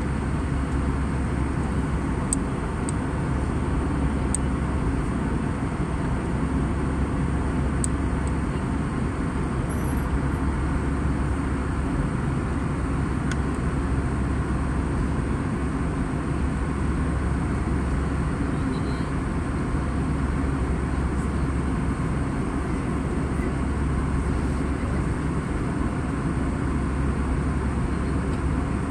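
Steady drone of an airliner cabin in cruise flight: engine and airflow noise, even and unchanging.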